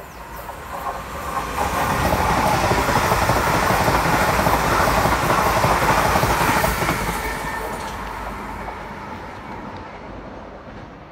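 EMR Class 360 electric multiple unit passing at speed: a rush of wheel-on-rail noise that builds over about two seconds, stays loud for about five, then fades as it draws away.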